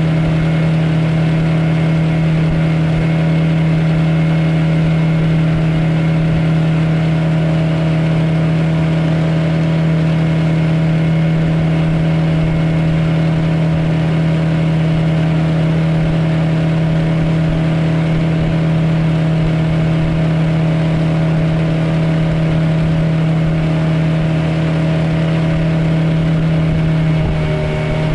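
Suzuki 9.9 outboard motor running steadily at an even cruising pitch, heard from aboard the small aluminium boat it drives. The engine note dips briefly near the end.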